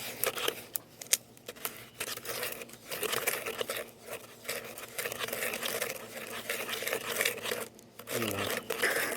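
Irregular scraping and rubbing of concrete repair mix being stirred with water in a container.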